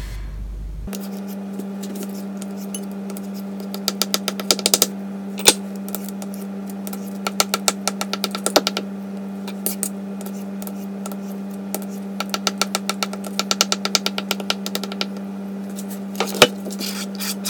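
Kitchen knife chopping boiled eggs on a plastic cutting board: runs of quick taps, pausing and resuming several times, with a few single harder knocks. A steady low hum sounds underneath, starting about a second in.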